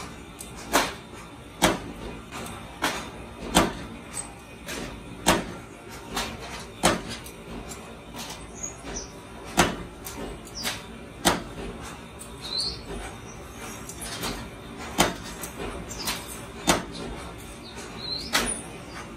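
Power forging press driving its ram down on red-hot steel plier blanks in the die: sharp metal blows at roughly one a second, unevenly spaced, each with a short ring.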